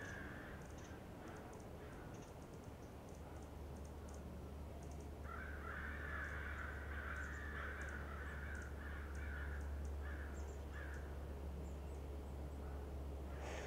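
A bird calling in a rough, broken run for about five seconds, starting about five seconds in, over a steady low hum.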